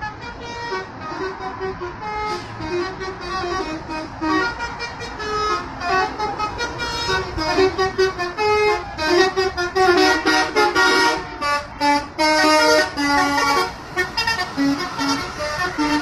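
A bus's multi-note telolet horn playing a tune of short toots that keep changing pitch, growing louder about halfway through as the bus comes near.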